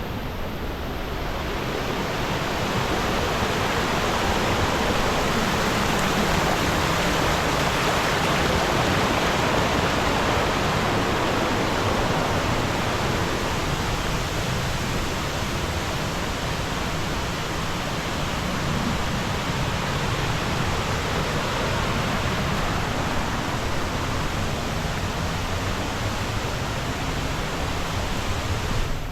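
Diyaluma Falls' falling water rushing steadily, growing louder over the first few seconds and then holding.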